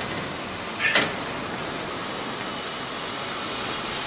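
Machine-shop ambience: the steady hiss and hum of running machinery, with one sharp knock about a second in.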